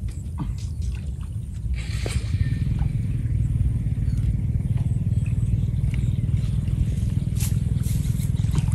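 A cast net on a bamboo pole being worked at the water's edge: a short splash and rustle about two seconds in, then a few light clicks. Under it all runs a steady low rumble that grows a little louder after the splash.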